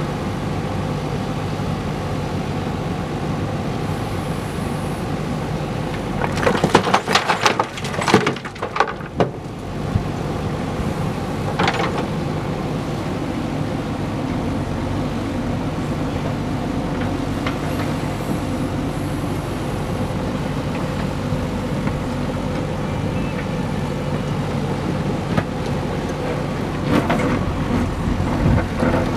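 A JCB backhoe loader's diesel engine runs steadily while its bucket works a heap of broken stone. Stones clatter and scrape in a loud burst about six to nine seconds in, there is a single knock a few seconds later, and more clatter comes near the end.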